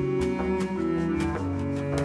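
Instrumental music: sustained pitched notes that change every half second or so, over a steady beat.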